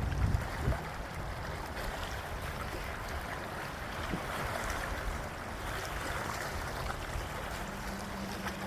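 Lake water lapping in small waves, a steady wash with a few faint splashes.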